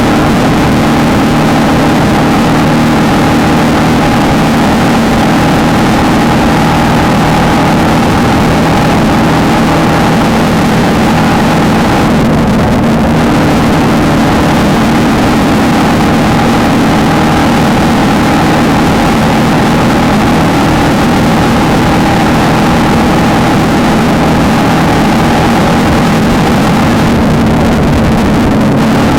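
Off-road desert race car engine running hard at steady high revs, with two short dips in the higher sound, about twelve seconds in and near the end.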